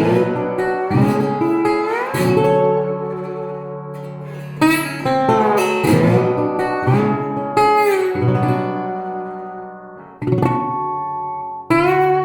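Republic Duolian steel-bodied resonator guitar played slide in open F# minor tuning: plucked notes with sliding glides in pitch over a ringing bass drone, in phrases that decay and are picked afresh several times.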